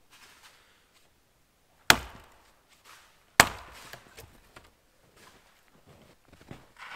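Two axe strokes biting into wood, about a second and a half apart, with quieter scuffing sounds between and after.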